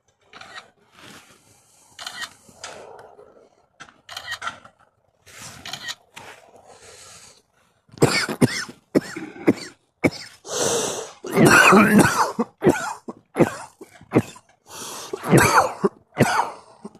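A person coughing in a series of short, irregular coughs, faint at first and then much louder and closer together from about halfway through.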